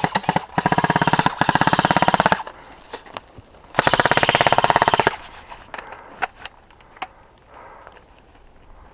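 Airsoft gun firing full-auto: three bursts of rapid, evenly spaced shots, the first two back to back and the third, about a second and a half long, starting a second later.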